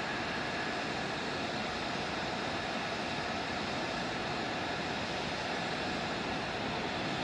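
Steady roar of jet turbine noise across an airfield flight line, with a faint steady whine in it.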